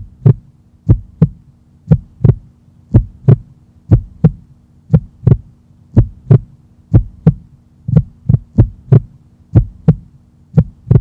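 Heartbeat sound effect: a steady double thump, lub-dub, about once a second, over a faint steady hum.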